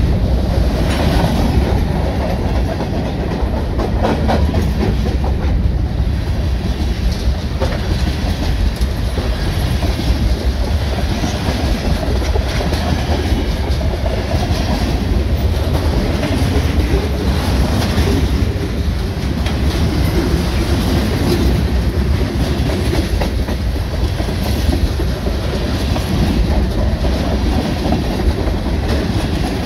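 Freight train cars (covered hoppers and tank cars) rolling past close by: a steady loud rumble with the clickety-clack of steel wheels over the rail joints.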